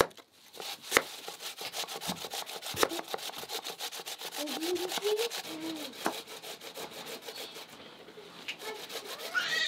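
Raw potatoes being cut and grated by hand: two sharp chops of a blade onto a wooden board at the start and about a second in, then a long run of rapid rasping strokes.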